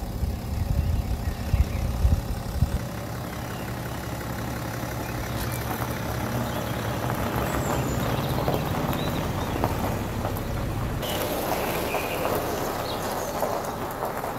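BMW 530d's N57 three-litre diesel straight-six running as the car drives slowly off across gravel, with the crunch of its tyres on the loose stones building once it is rolling.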